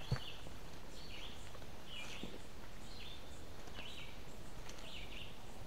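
A bird calling outdoors, a short downward chirp repeated about once a second over a steady background hiss, with one soft thump right at the start.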